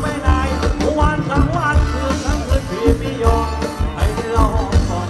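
Live Thai ramwong band music: a singer's melody over a steady drum and bass beat.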